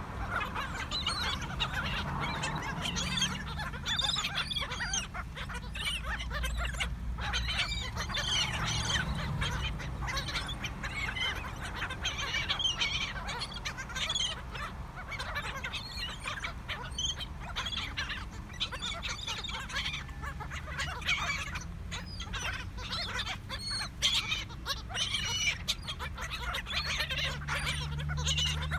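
Flock of laughing gulls calling continually over one another as they crowd around food, many short overlapping squawks. A low rumble of wind on the microphone runs underneath.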